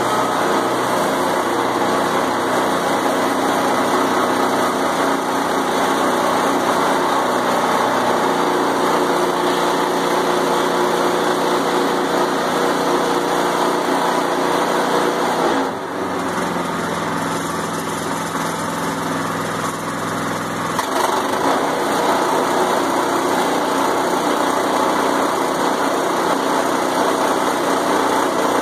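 Small gas engine of a portable bandsaw sawmill running steadily. Its note changes and gets a little quieter about sixteen seconds in, then returns about five seconds later.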